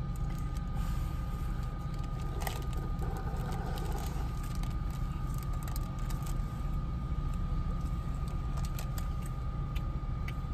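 Steady low rumble of a car's engine idling, heard from inside the cabin, with a thin steady whine over it and a few small clicks.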